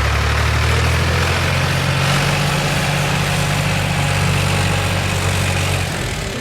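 Tractor engine running steadily at idle, a low, even hum.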